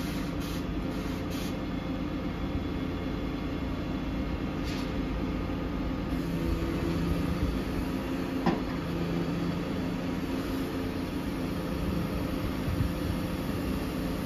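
Volvo FE 320 truck's diesel engine running steadily to drive the Hiab crane's hydraulics while the crane boom moves, the hum shifting a little in pitch partway through. A single sharp knock about eight and a half seconds in.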